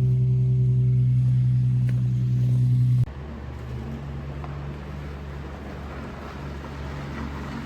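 Nissan 350Z's VQ35DE V6 running steadily just after a cold start, a strong even engine tone. About three seconds in it cuts off abruptly to a quieter, rougher vehicle rumble.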